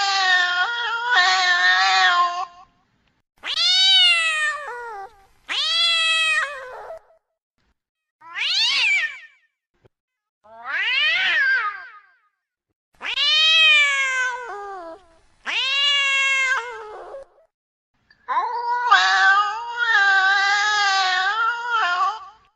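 Female cat in heat caterwauling: a string of about eight loud, drawn-out yowls, each rising and then falling in pitch, with short silences between. The first and last calls are longer and held steadier than the ones between.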